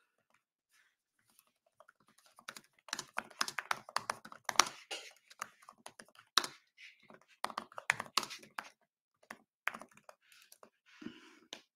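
Typing on a computer keyboard: a rapid run of keystrokes that starts a few seconds in, with a few short pauses between bursts.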